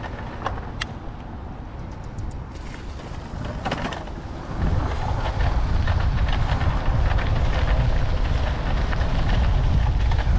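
Wind buffeting the microphone of a moving bicycle, with road and tyre noise and scattered clicks and crackles; the low wind rumble becomes much louder about four and a half seconds in.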